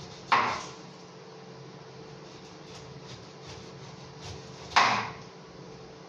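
Two sharp knocks about four and a half seconds apart, each dying away quickly: a knife chopping through a pineapple onto a wooden cutting board while it is being peeled.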